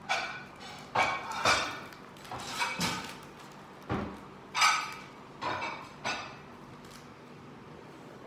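A series of about nine irregular knocks and taps, some sharp with a short ring, stopping about six seconds in.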